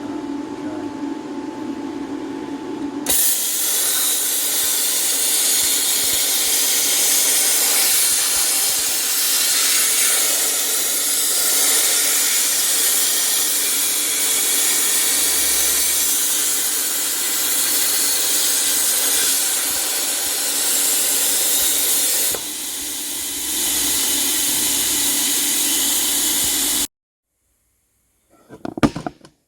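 Loud, steady hiss of gas under pressure that starts abruptly, wavers slightly and dips briefly near the end, then cuts off suddenly. A short clatter follows.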